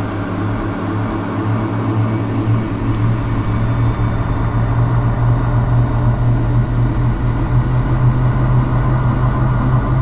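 A loud, steady low drone with a rumbling, engine-like quality, its main tone shifting slightly higher about a second in and then holding.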